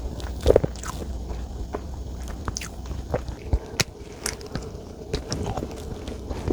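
Close-miked eating sounds of chocolate desserts being bitten and chewed: soft, wet chewing with scattered mouth clicks and a louder bite about half a second in.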